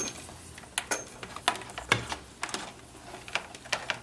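Irregular small clicks and knocks, about ten in four seconds, from handling a Morse straight key and its plug while trying to wire around the key's reversed polarity; no sidetone is heard.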